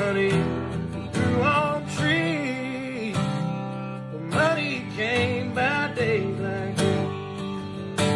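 Background music: a country song with a singing voice over strummed acoustic guitar.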